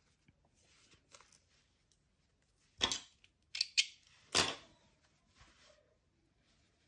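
A few sharp clicks and knocks, about three to four and a half seconds in, from scissors being picked up and handled on a hard worktop, with faint rustling of fabric and thread around them.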